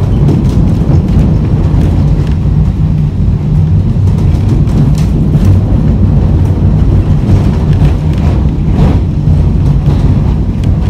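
W-class electric tram running along the track, heard from on board: a loud, steady low rumble from the wheels and running gear, with faint scattered clicks.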